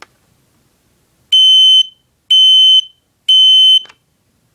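Kidde P9040 photoelectric smoke alarm sounding its test alarm after a click: three loud, high-pitched beeps, each about half a second long with half-second gaps, the standard temporal-three evacuation pattern.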